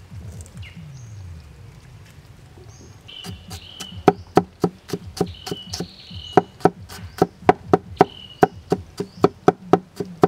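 A steel cleaver chopping peeled garlic cloves on a wooden chopping block. It makes a steady run of sharp knocks, about three a second, starting about four seconds in.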